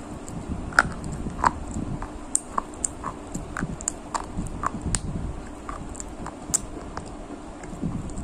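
Close-miked chewing and mouth sounds of someone eating biryani with curd: wet, irregular clicks and smacks of the lips and tongue, several a second, over soft mashing of rice.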